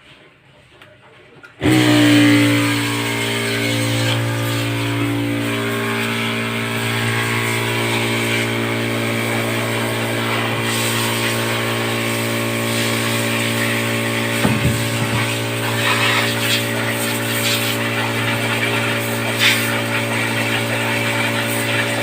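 An electric motor switches on about two seconds in and runs steadily with a hum and a hiss.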